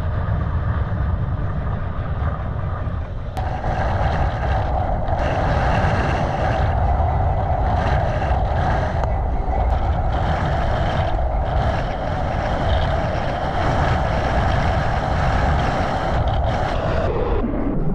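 Strong wind buffeting the microphone with a heavy low rumble while riding. From about three seconds in, a steady mid-pitched whine runs over it, then drops in pitch and stops near the end.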